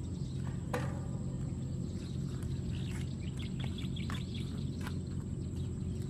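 Open-air roadside ambience: a steady low hum, with faint bird chirps in the middle and a few small clicks, the sharpest just under a second in.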